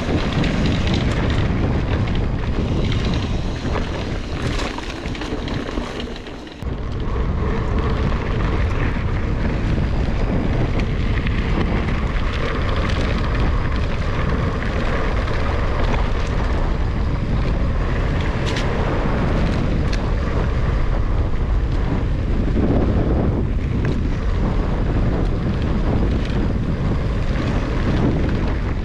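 Wind buffeting an action camera's microphone over the rolling and rattling of a Commencal Meta HT hardtail mountain bike on a dry dirt trail, steady and loud with scattered knocks. It dips briefly about six seconds in.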